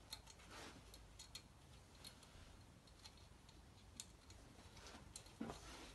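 Faint, scattered small metallic clicks and ticks of hands working small parts at a compressed valve spring on a cylinder head, with a soft rustle or two.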